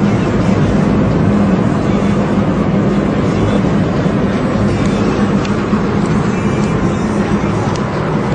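Steady vehicle driving noise: a constant engine drone with road and wind rumble, even in level throughout.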